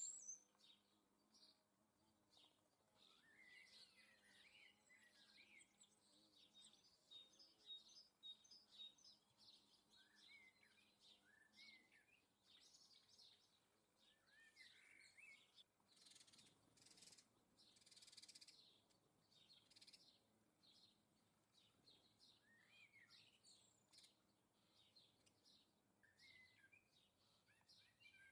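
Small garden birds chirping and twittering faintly in short scattered calls. About two-thirds of the way through comes a brief rushing noise lasting a few seconds.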